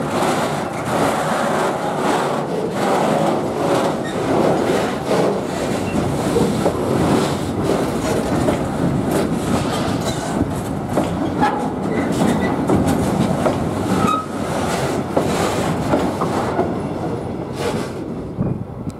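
Freight train's covered sliding-wall wagons rolling past close by: a steady rumble of wheels on rail with repeated clicks over the rail joints and a few brief faint wheel squeals. The last wagon passes near the end and the sound falls away.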